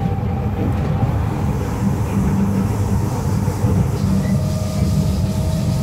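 Steady low rumble of a Kawasaki-Nippon Sharyo C751B metro train running along the track, heard inside the carriage, with a faint steady whine above it.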